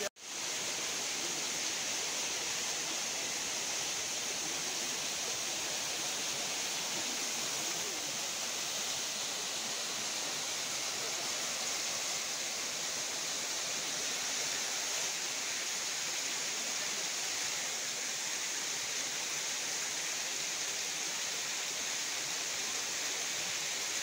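Small waterfall splashing over layered rock ledges into a shallow rocky stream: a steady, even rush of water.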